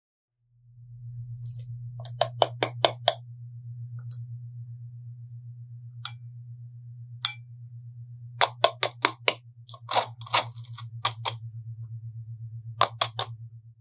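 Stainless steel mesh sieve being tapped to shake flour and cocoa powder through, making quick runs of sharp metallic clinks, four runs in all, over a steady low hum.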